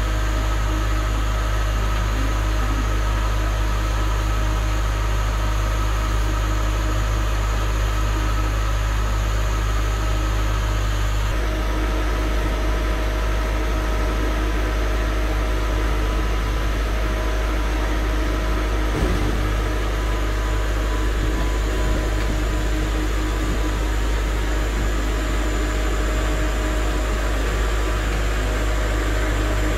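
Automatic kale harvester running: a steady mechanical drone with a strong low hum and several constant tones from its drum and conveyors as they feed cut kale leaves into the hopper. The tone of the drone shifts slightly about eleven seconds in.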